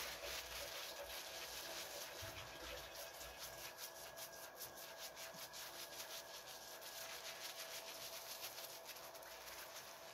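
Hands scrubbing shampoo lather through a full, thick beard: a soft, rapid wet rubbing of foam against hair, with the strokes coming quickest about halfway through.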